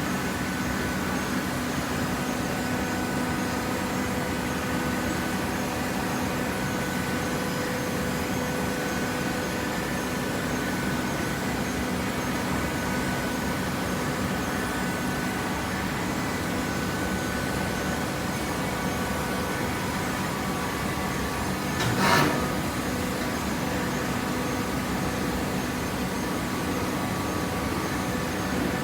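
Hydraulic paper baler running: a steady machine hum with several fixed tones, broken once by a sharp knock about 22 seconds in.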